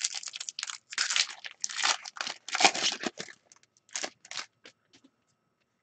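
Foil wrapper of an Upper Deck Artifacts hockey card pack crinkling and tearing as hands open it: dense crackling for about three seconds, then a few lighter rustles and clicks.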